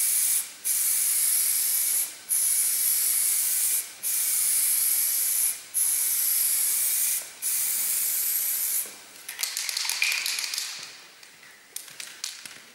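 Clear protective varnish being sprayed onto a finished oil painting: a run of hissing sprays, each about a second and a half long with short breaks between them. The spraying stops about nine seconds in, followed by a few soft clicks and rustles.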